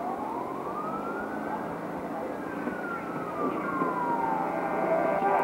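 A siren wailing: one tone rising slowly in pitch for about two seconds, then falling for about three, over a steady background hiss.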